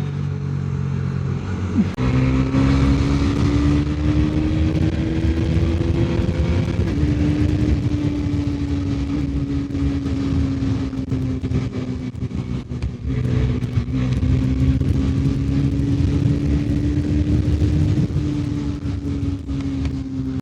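Bajaj Pulsar NS400Z motorcycle engine pulling hard at high speed over a rush of wind. The throttle opens sharply about two seconds in, and the engine note then climbs steadily, dips once about a third of the way through, and climbs again.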